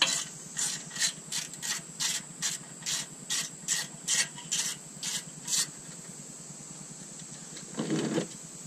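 Hand ratchet wrench working a bolt, a quick rasp on each back-stroke, about two and a half strokes a second, stopping about five and a half seconds in. A short low rumble follows near the end.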